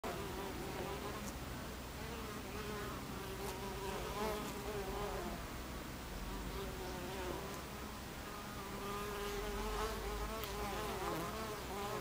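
Buckfast honeybees buzzing at the hive entrance. Single bees fly close past now and then, each buzz rising and falling in pitch as it goes by.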